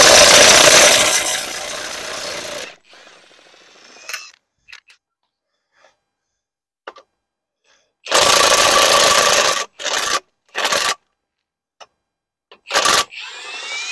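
Milwaukee M18 cordless impact wrench hammering fasteners loose, first the wheel nuts, then the drive flange bolts on the hub. It runs in bursts: one long burst of about two and a half seconds at the start, then, after a pause, one of about a second and a half followed by several short ones.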